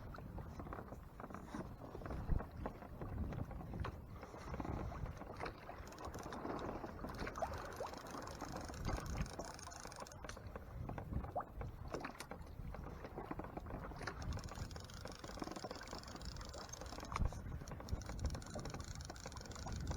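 Water sloshing and lapping against a kayak hull under way, with low wind rumble and scattered small clicks and knocks. The sharpest knocks come about two seconds in and again near the end.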